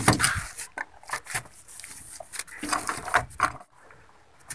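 Handling noise as a plastic threaded adapter is screwed by hand onto a brass flush push valve lying on bubble wrap: irregular crinkles of the bubble wrap and small clicks of the fittings, stopping shortly before the end.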